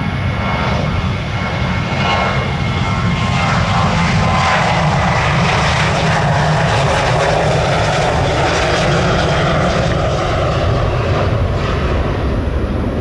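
Airliner's engines at takeoff power as the aircraft passes close by: a loud, steady rushing engine noise that builds over the first few seconds, holds, and eases slightly near the end.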